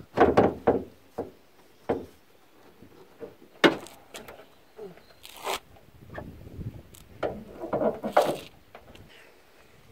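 Car hood being opened by hand: a string of separate knocks, clicks and scrapes as the hood's catch is released and the hood is lifted up.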